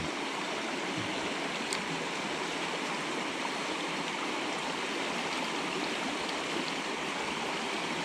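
Small mountain creek running steadily over a rocky riffle, an even rushing of water.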